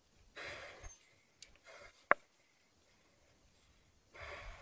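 A person's heavy breathing, three hard breathy exhales, from the strain of walking and holding a heavy motorcycle down a slippery slope by hand. A single sharp click about two seconds in is the loudest sound.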